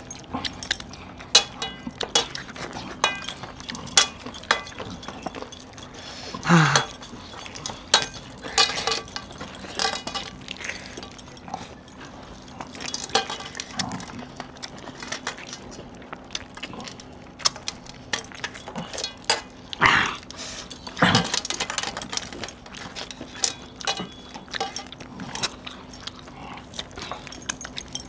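Eating by hand from steel plates: scattered clinks and clicks of metal rings and bracelets against each other and the plates, with chewing and mouth noises. A few short grunt-like vocal sounds come about six seconds in and again around twenty seconds, over a faint steady hum.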